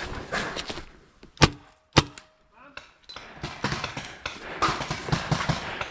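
Two sharp shots from a magfed paintball marker, a Tiberius T15, fired about half a second apart. Breathing and rustling movement come before and after them.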